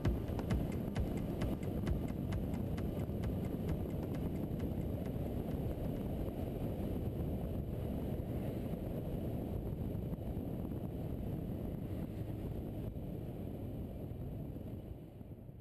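Motorcycle riding noise picked up by a bike-mounted camera: engine and wind as a dense low rumble. A music beat fades out in the first couple of seconds, and the whole sound fades away near the end.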